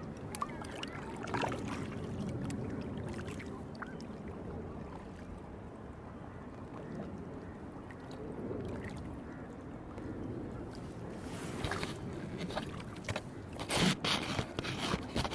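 Paddle strokes and water sloshing around a two-seat inflatable kayak, a steady watery wash. Near the end come louder knocks and rubbing as the camera is shifted against the kayak's fabric hull.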